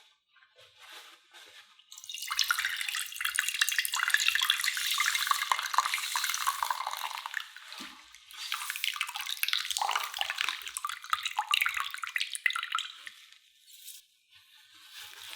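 Water running from a tap in two stretches of several seconds each, with a short break between them.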